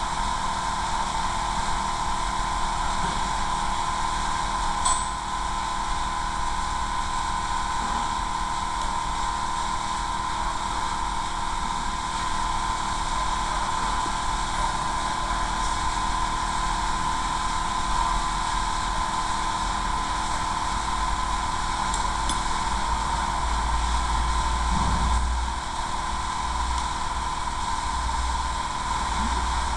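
A steady mechanical drone: a constant high hum over a low rumble, with a sharp click about five seconds in; the rumble swells near the end and then drops back.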